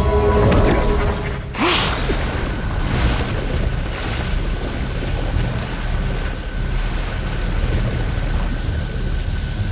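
Dark, brooding drama score with a steady low rumble, struck by one sharp hit about two seconds in.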